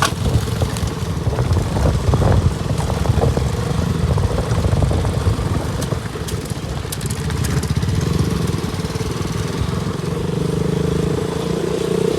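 Single-cylinder engine of a KTM RC 200 motorcycle running steadily under way, a rapid low pulsing with a steady hum over it, dipping slightly in the middle.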